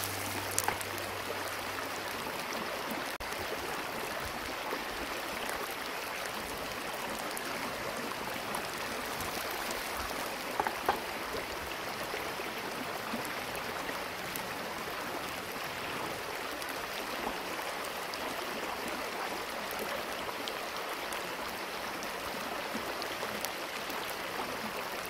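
Kimchi pancake frying in oil in a frying pan on a portable gas burner: a steady sizzle with fine crackling and a few louder pops, one about eleven seconds in.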